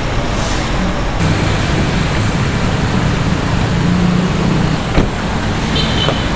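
Steady road traffic noise from a busy city street, a low rumble under a broad hiss. There is a single sharp click about five seconds in and a few short high-pitched tones just before the end.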